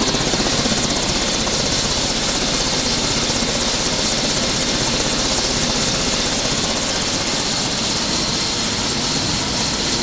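Turbine helicopter running, a steady high whine over an even rushing noise.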